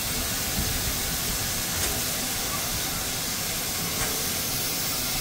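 Steam locomotive No. 2023 standing at the platform, hissing steadily as it vents steam.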